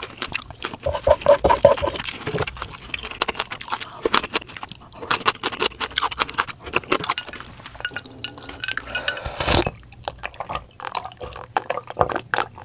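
Close-up eating sounds: chopsticks clicking and scraping against a plate and ceramic dishes, with wet chewing and many small clinks, and one louder knock about two-thirds of the way through. Near the end, a glass dish of kimchi broth is lifted and sipped.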